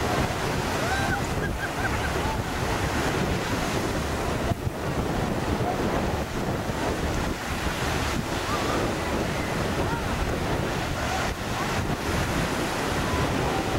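Choppy, wind-driven waves breaking on a sandy shore, with gusty wind buffeting the microphone.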